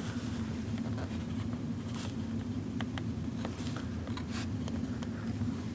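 Steady low hum in the room, with a few light clicks and scrapes of small plastic cable clips and cable being handled against a wall, the clearest about two and three seconds in.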